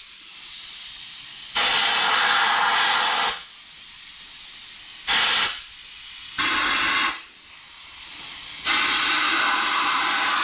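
Compressed-air blow gun blowing out the main bearing oil galleys of a bare GM 6.0 L LQ4 V8 block: four loud hissing blasts, the last and longest starting near the end, with a fainter hiss of air between them.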